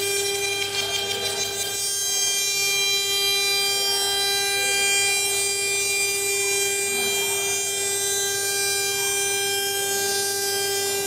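CNC router spindle whining steadily at one constant pitch while engraving aluminum.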